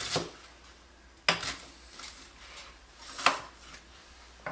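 Chef's knife chopping through an onion onto a plastic cutting board: three sharp knocks one to two seconds apart, and a lighter one near the end.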